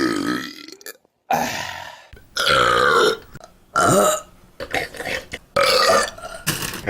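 Loud human burps, about six in a row with short gaps between them, each drawn out and wavering in pitch.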